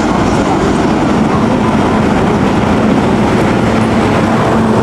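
Heavy traffic approaching on a highway: a Fuso diesel truck and intercity buses running up the road, a steady rush of diesel engine and tyre noise, with an engine drone growing stronger near the end.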